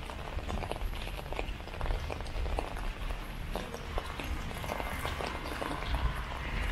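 Light rain tapping irregularly on an umbrella overhead, mixed with footsteps on wet pavement, over a steady low rumble.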